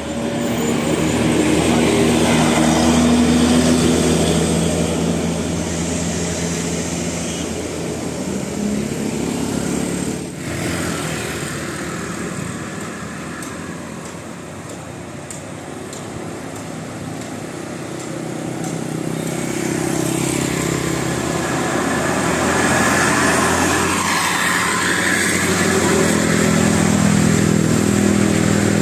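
Road traffic passing: motor vehicles and motorcycles with their engines running. The traffic swells loudest about three seconds in, eases off midway, and builds again toward the end.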